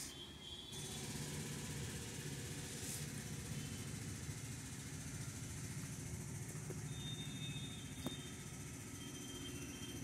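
A steady low mechanical hum, like a motor running, with one faint click about eight seconds in.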